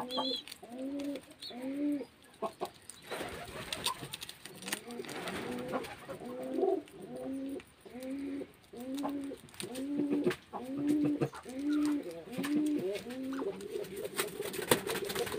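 Runs of short, low cooing calls, each rising then falling, about two a second, over scattered clicks and rustles as a group of guinea pigs nibble a leafy stalk. The calls stop near the end, giving way to a steady low buzzing.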